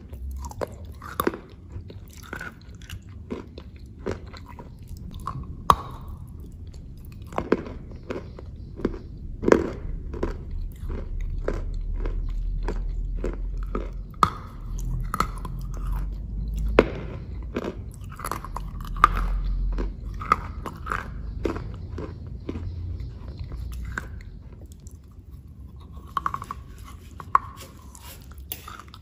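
Close-miked chewing of a pastry coated in chocolate paste: irregular sharp crunchy bites and wet mouth sounds throughout, with a low rumble through the middle stretch.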